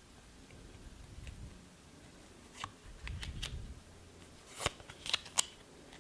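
Yu-Gi-Oh trading cards being handled: soft rustling, then a few sharp card clicks and snaps in the second half as the next card is slid into view.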